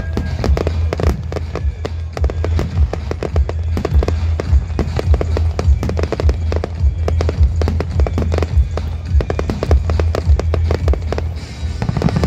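Fireworks display: aerial shells bursting and crackling in rapid succession, many reports a second, over music.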